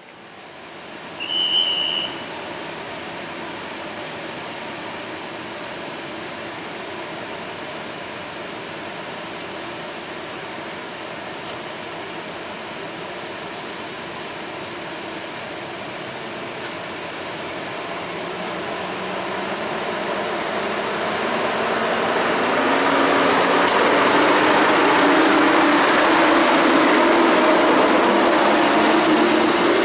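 EP07 electric locomotive starting a passenger train: a steady hum while it stands, then the traction motors' whine rising in pitch as it pulls away. The sound grows much louder in the last third as the coaches roll past with wheel and running noise. A short high whistle sounds about a second in.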